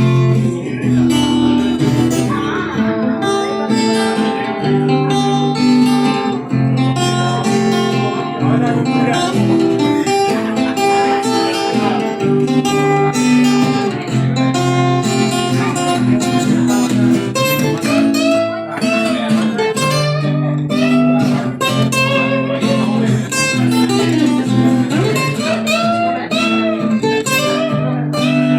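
Instrumental break of a blues song, guitar to the fore over a steady accompaniment, with bending lead lines in the second half.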